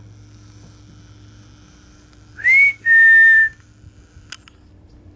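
A person whistling to call a puppy's attention: a short rising note, then a longer, steady, slightly lower note, about two and a half seconds in.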